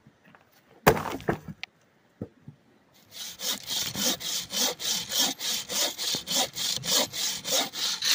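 A loud knock and short crackle about a second in. From about three seconds in, a home-made wooden-frame bow saw cuts through a dead branch in quick, even back-and-forth strokes.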